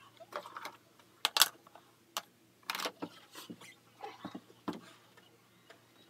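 Irregular rustles and light knocks, with a few brief bright swishes, of long hair being brushed and flipped and bottles being handled.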